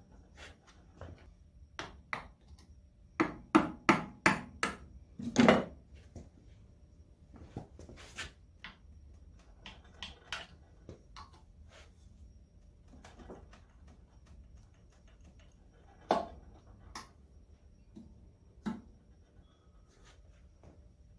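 Tools and metal parts knocking and clanking on the cast-iron crankcase and crankshaft of an International Harvester Type M 3 hp engine as the crankshaft is being removed. A quick run of about five knocks comes a few seconds in, then a few scattered single knocks.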